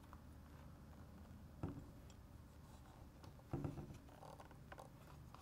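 Faint handling of a small plastic servo-cable plug as it is fitted into the landing gear module's port: two brief light clicks or rustles, about one and a half and three and a half seconds in, over quiet room tone.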